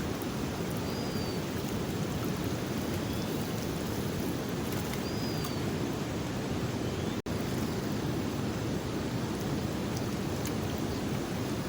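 Steady rushing noise of a fast-flowing flooded river, heaviest in the low range. The sound drops out for an instant a little past the middle.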